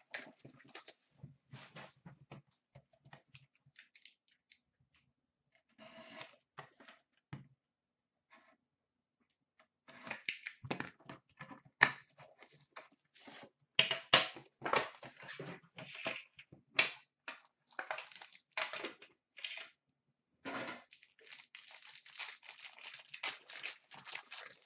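Hands tearing and crinkling the clear plastic wrap off a sealed box of trading cards and opening the box. Scattered rustles and clicks at first, then a dense run of crinkling and tearing from about ten seconds in.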